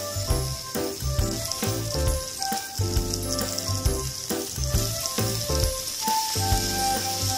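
Thin-sliced beef sizzling in a hot nonstick frying pan, a steady hiss of fat and moisture cooking off. Background music with a pulsing bass line plays along with it.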